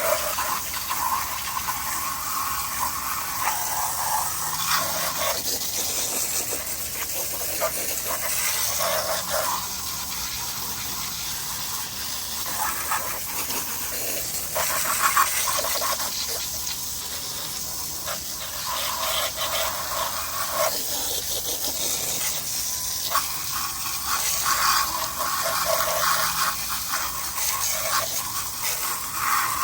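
Water spraying and splashing onto a robot lawnmower to knock off dirt and grass, the spray swelling and fading as it is moved around.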